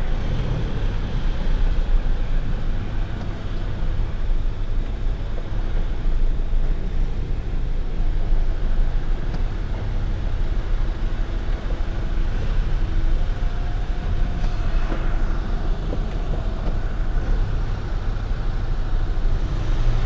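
A van's engine running steadily at low speed, with a continuous low rumble of engine and road noise.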